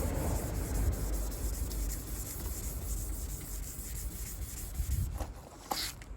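600-grit wet-and-dry sandpaper rubbing over a car's plastic headlight lens, a continuous rough scrubbing that takes out the big scratches. It eases off about five seconds in, followed by a few light clicks.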